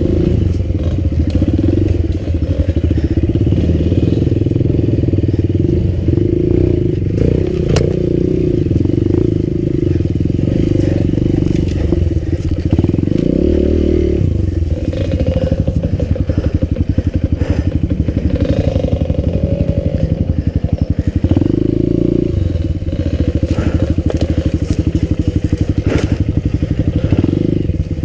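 Enduro motorcycle engine running under the rider's throttle, the revs rising and falling, with a few sharp knocks and clatter from the bike over rough ground.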